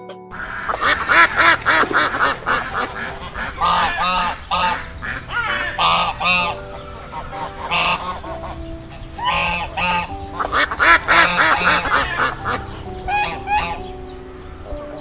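A flock of white domestic ducks quacking on the water, many calls overlapping in a continuous chorus.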